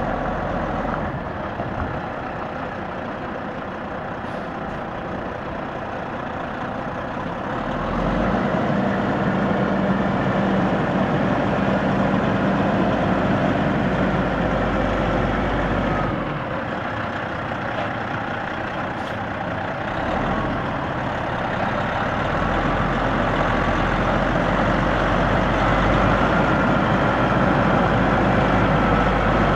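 Diesel engine of a heavy semi-truck tractor running as the truck drives slowly. It gets louder about eight seconds in, eases off a little partway through, and builds again over the last few seconds.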